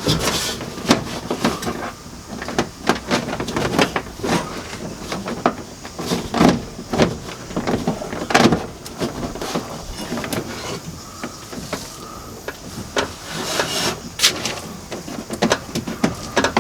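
Rustling, crinkling and scraping as a sound-deadening sheet is worked into a car door panel and its plastic backing is peeled off, with irregular taps and knocks against the door.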